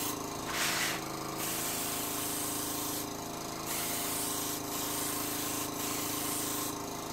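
Airbrush hissing on and off in short passes as it sprays paint, over the steady hum of its small air-compressor pump.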